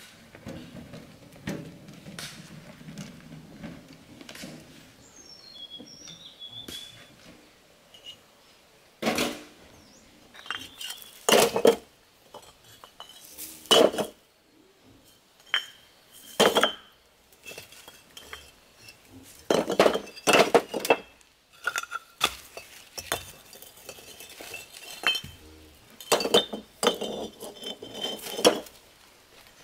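Red hollow clay bricks clinking and knocking against each other as they are lifted out of a metal wheelbarrow, in irregular strokes and quick clusters from about a third of the way in. Before that there is a low rumble as the wheelbarrow is wheeled in.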